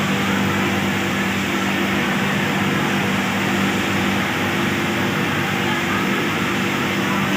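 Steady din of many industrial sewing machines running on a garment factory floor, with a constant motor hum underneath.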